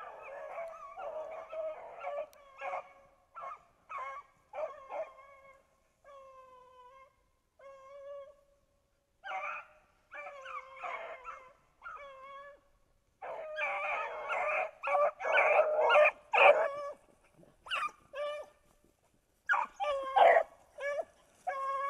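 Beagles baying while running a rabbit: a string of long drawn-out howls that drop in pitch, mixed with shorter barks and yelps. The calls come in quick succession and are loudest past the middle.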